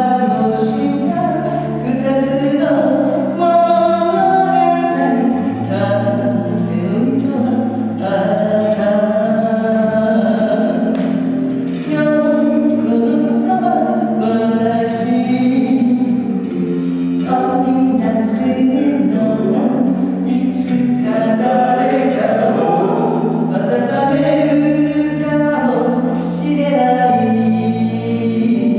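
Live acoustic pop song: singing over strummed acoustic guitar and electric bass.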